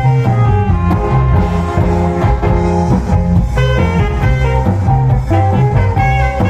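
Cha-cha dance music played loud through a large mobile sound system, with a heavy bass line that steps from note to note under brass and guitar parts.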